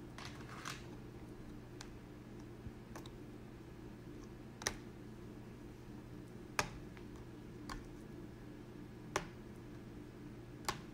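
Irregular sharp clicks and snaps of hardened wax and plastic cookie cutters as set wax is pried out of star-shaped cutters, four of them louder than the rest, over a steady low hum.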